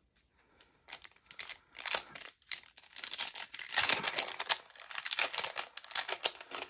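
Foil Pokémon booster pack wrapper crinkling as hands open it, starting about a second in, a dense run of sharp crackles.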